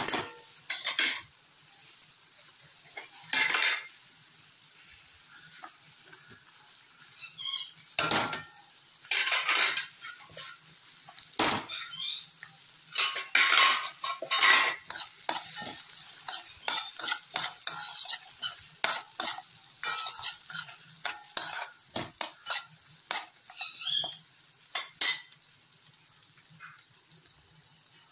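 Metal spoon stirring and scraping frying vegetables and lentils in a stainless steel pan, in short irregular strokes over a faint steady sizzle.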